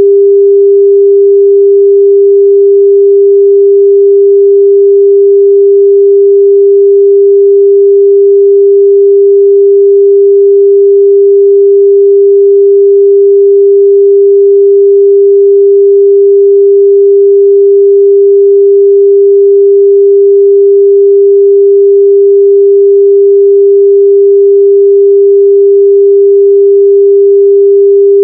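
A loud electronic pure tone at one unchanging pitch, held without a break: a sine-wave sound played through earbuds so that lost AirPods or Bluetooth headphones can be found by ear.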